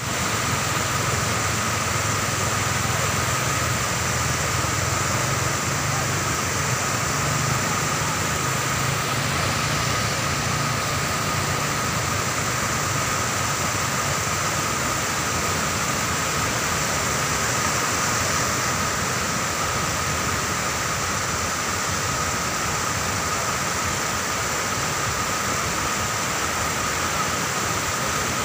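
Floodwater pouring over the broken edge of a road in a wide cascade, a steady rushing noise throughout. A low hum sits under it, stronger in the first twelve seconds or so.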